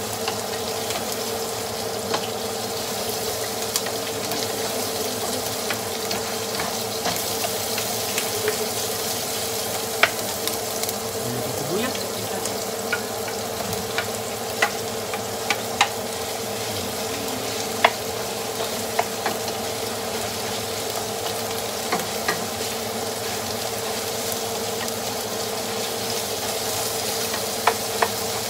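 Garlic and ginger frying in hot oil in a pan: a steady sizzling hiss with scattered sharp clicks, over a steady low hum.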